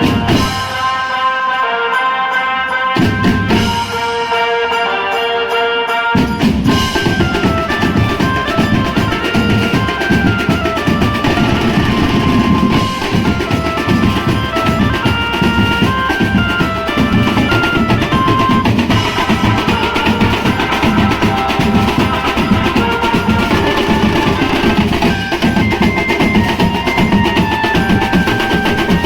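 Benjo band playing: a lead melody with a keyboard line, and about six seconds in the drums come in with a fast, dense beat under it.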